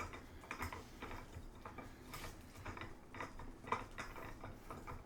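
Irregular metal clicks and light knocks from the parts of a new Daytona 3-ton floor jack being handled and fitted together, a few louder clicks standing out about two seconds in and near the end.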